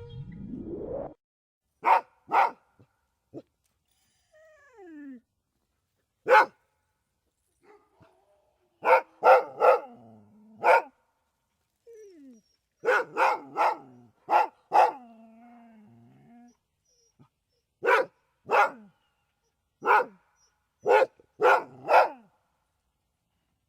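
Siberian husky barking: sharp barks, some single and some in quick runs of two to four, with a few brief whines between them. A short rising sweep opens the first second.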